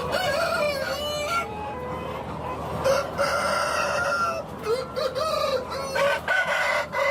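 Dong Tao roosters crowing, several long calls overlapping one another, with shorter chicken calls between them.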